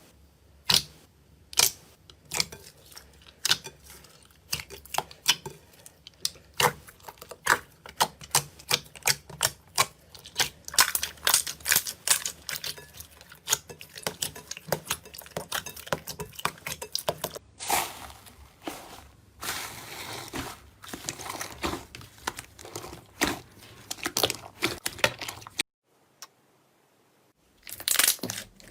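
Slime being pressed and worked by hand, giving a fast, irregular run of sharp clicks and crackles. There is a softer, smoother stretch past the middle and a brief silent gap near the end before the clicking resumes.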